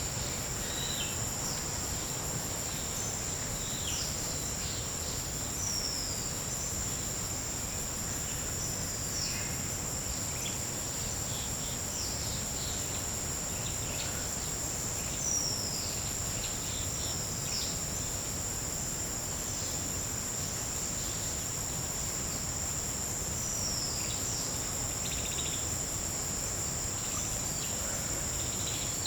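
Tropical forest ambience: a steady, high-pitched insect drone, with short falling chirps from other animals scattered every second or two over a low background rumble.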